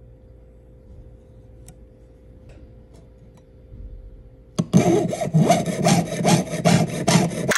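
Jeweller's saw cutting sterling silver sheet on a wooden bench pin, in quick, even back-and-forth strokes, about three a second. It starts about two-thirds of the way in, after a quiet stretch with a few faint ticks.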